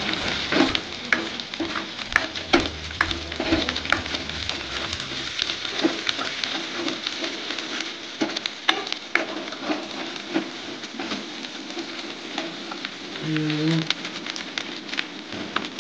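Chopped onion, green chilli and garlic sizzling in hot oil in a kadhai, with a steel ladle stirring the mix and clicking and scraping against the pan many times.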